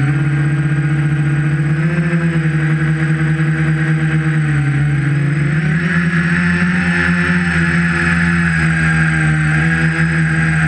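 Tricopter's brushless motors spinning 11-inch props, a steady multi-tone drone whose pitch shifts with the throttle, with a brighter whine in the second half and wind buffeting underneath.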